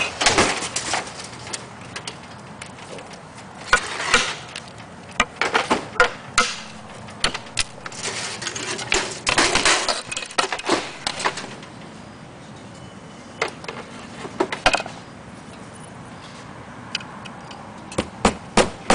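Roofing slates clinking and clattering as they are handled and set in place, with scattered sharp taps. Near the end a run of quick, evenly spaced strikes begins as a slater's hammer drives a nail through the slate.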